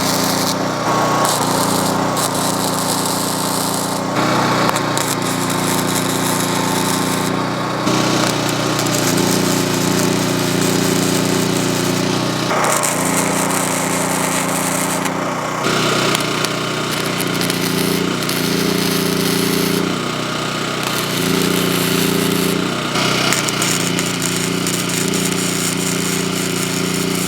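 Flux-core wire welding arc from a Lincoln Electric 90i FC crackling on steel pipe, in runs of a few seconds with short breaks between welds.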